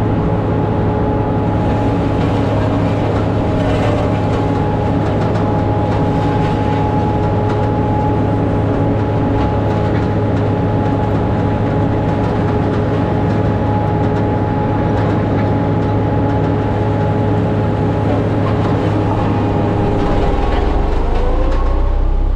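Ride-on roller compactor running as it drives over a gravel road base. Its engine drones steadily with a constant whine. Near the end the low rumble grows heavier and a rising tone comes in.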